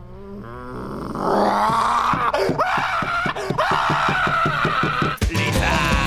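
A man's long, high-pitched strained scream with a fast pulsing under it. About five seconds in it cuts off and a music jingle starts.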